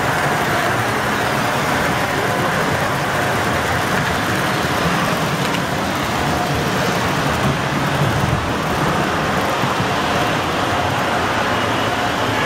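Model trains running on a layout: the steady rolling rumble of a model Amtrak Acela passenger train passing close by, a little heavier in the lower register in the middle, over constant background noise.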